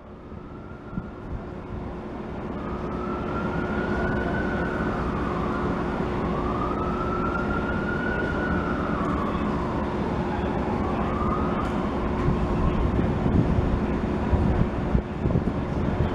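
A siren wailing, its pitch slowly rising and falling in long sweeps for about ten seconds, over a steady low hum from idling trains.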